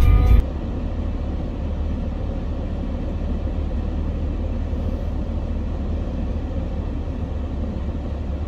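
Steady low rumble of wind on the microphone, even and unbroken, after a snatch of music cuts off about half a second in.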